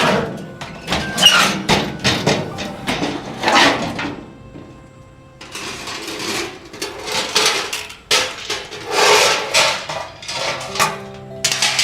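Hands-on work noises: a run of sharp knocks and clatters, then longer scraping or rubbing sounds from about halfway through.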